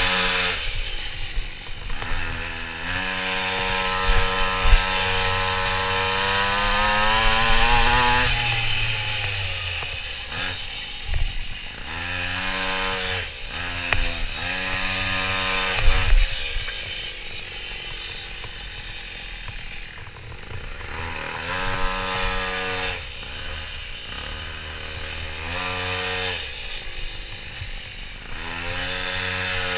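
Minimoto's small two-stroke engine revving hard, its pitch climbing for several seconds before dropping off, then rising again in several short bursts of throttle between corners. Wind rush on the helmet microphone underneath, with a couple of sharp knocks.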